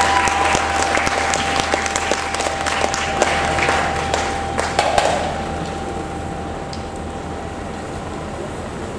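Crowd in a stadium applauding and cheering as a marching band's show ends, loudest for the first five seconds and then dying down. A single held note sounds over the clapping and stops about five seconds in.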